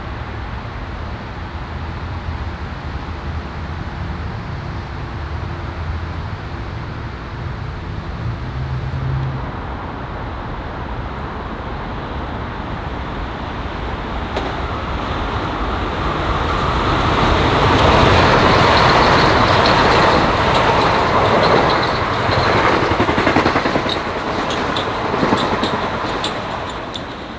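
A low, steady rumble, then a Metro-North commuter train that approaches from about halfway through, grows loud and passes, with a run of sharp clicks in the loudest stretch before it fades near the end.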